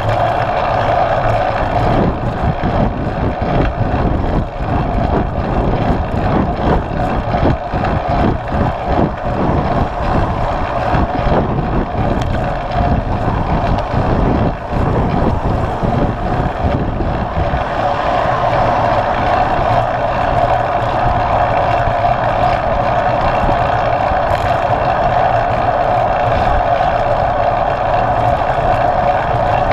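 Wind rushing over a handlebar-mounted action camera's microphone on a moving bicycle, mixed with tyre and road noise. The noise is loud and continuous, with uneven low buffeting through the first half that turns smoother and steadier after about halfway.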